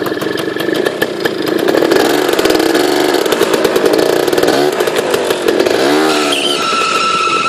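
Aprilia SR125 scooter engine running with a rapid, buzzy firing after a cold start, revved up and back down twice. About six seconds in, a steady high whine comes in over the engine.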